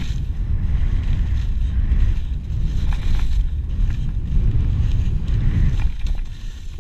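Wind buffeting the action-camera microphone during a fast descent through deep powder snow, a gusty rumble with a fainter hiss of snow being cut, easing slightly near the end.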